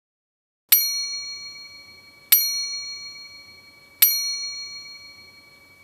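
A bell-like chime struck three times, evenly spaced about one and a half seconds apart, each strike ringing out and fading before the next.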